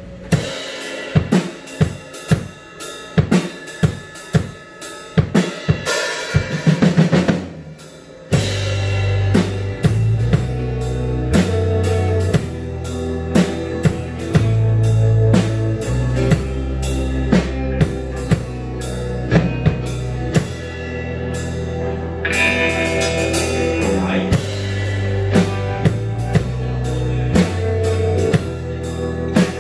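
Live rock band playing an instrumental passage on electric guitars, bass guitar and drum kit. For the first eight seconds it is sharp drum and guitar hits; then low bass notes come in and the full band plays steadily.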